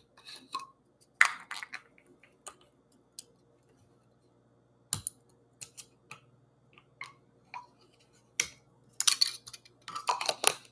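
Fingers picking at and peeling the seal off the neck of a plastic coffee creamer bottle: scattered small clicks and crinkles of plastic, busiest near the end.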